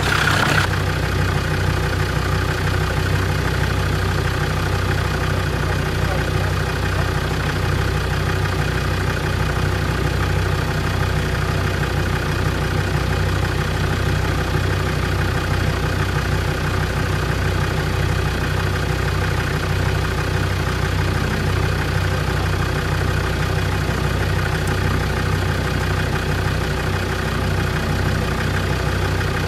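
4x4 engine idling steadily with a low hum as an off-road vehicle crawls slowly down a rocky track.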